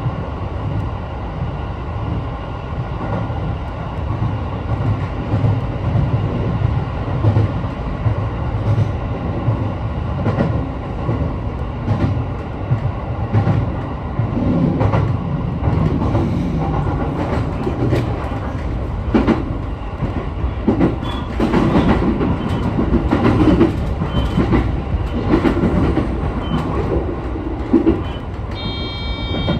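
Sotetsu 12000 series electric train running along the line, heard from inside the front car: a steady rumble of wheels and running gear, with clickety-clack of wheels over rail joints that gets busier in the second half. A short high tone sounds near the end.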